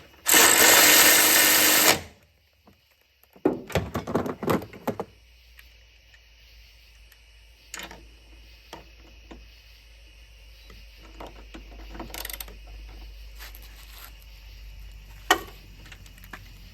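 DeWalt DCF503 12V cordless 3/8-inch ratchet run at full speed for about two seconds, driving a bolt down tight. A few shorter bursts follow about three and a half seconds in, then only faint clicks and knocks.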